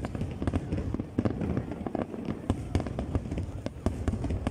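Aerial firework shells bursting in rapid, overlapping bangs over a continuous low rumble, as in the dense finale of a large display.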